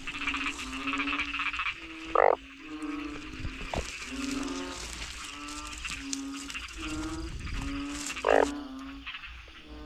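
A chorus of frogs calling at a breeding pool: short pitched croaks repeat about once or twice a second, with two louder, nearer calls about two seconds in and again near the end.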